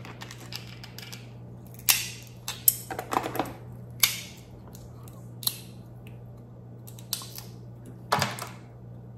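Cooked crab shell cracking and snapping as meat is worked out of the legs by hand and with a metal crab pick: a string of sharp crackles and clicks, several close together about two to three seconds in and another cluster near the end.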